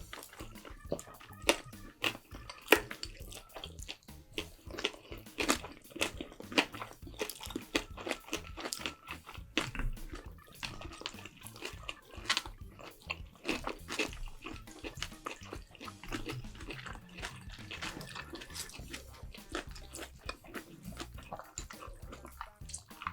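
Close-up eating sounds: chewing and biting food, an irregular run of wet mouth clicks and smacks.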